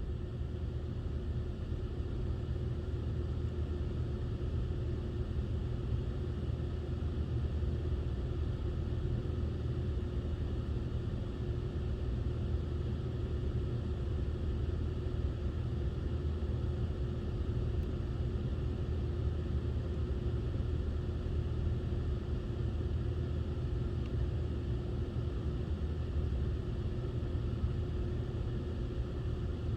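A car running with a steady low rumble and a faint even hum, unchanging throughout.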